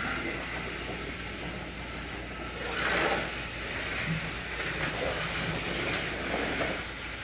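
Small electric motor of a battery-powered Trackmaster toy train whirring steadily, with a brief louder rustle about three seconds in.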